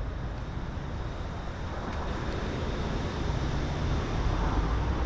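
Wind buffeting the microphone: a steady, uneven low rumble with a hiss over it, and a couple of faint clicks about two seconds in.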